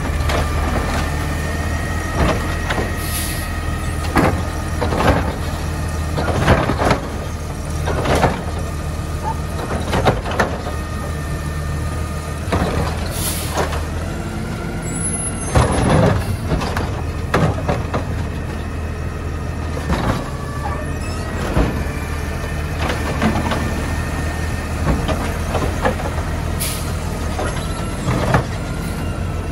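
Natural-gas automated side-loader garbage truck working its lifting arm: the engine and hydraulics run with a steady whine while recycling carts are lifted, dumped and set down in a series of knocks and bangs, with a few short air hisses.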